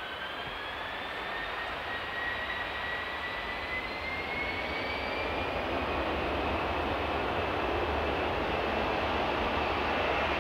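Jet airliner's engines running with a whine that rises steadily in pitch over a broad rushing noise, growing gradually louder.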